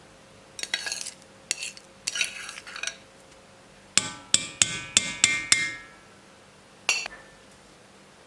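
Hard objects knocking and clattering: a few scrapes and knocks, then a quick run of six sharp ringing taps, and one more tap near the end.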